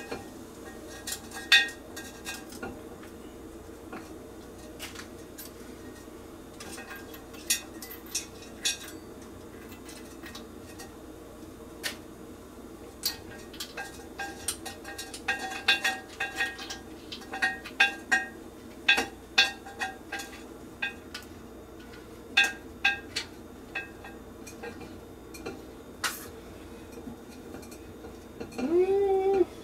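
Stainless steel spigot parts clinking and tapping against a glass beverage dispenser as the spigot is fitted into the jar's opening and tightened. The clinks are irregular and ring briefly, coming in scattered clusters, busiest in the middle of the stretch.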